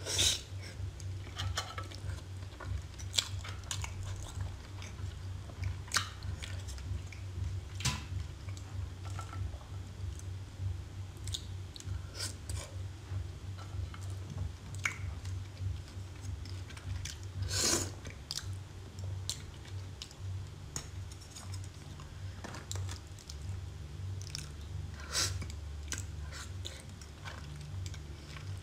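Close-miked chewing of raw scallop and other seafood in a thick sauce: soft wet mouth sounds with scattered sharp clicks and smacks, over a steady low hum.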